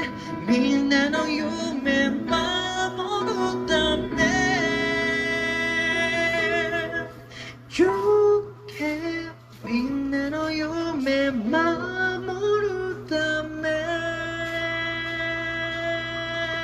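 Background music: a song with a voice singing held, sliding notes over instrumental accompaniment.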